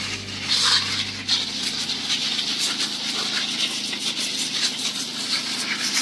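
Pesticide spray hissing steadily from a sprayer nozzle into persimmon tree foliage, with irregular faint crackles. Background music fades out over the first two seconds.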